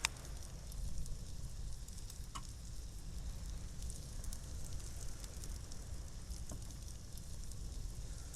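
Thin-sliced beef brisket sizzling in a pan, with scattered small crackles and spatters over a steady low rumble.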